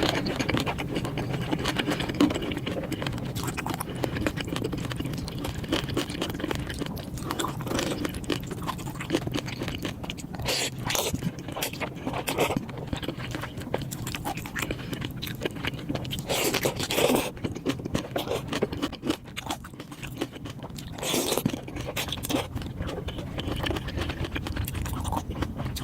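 Close-miked eating sounds: steady wet chewing and crunching of food, with several louder crunchy bites spread through.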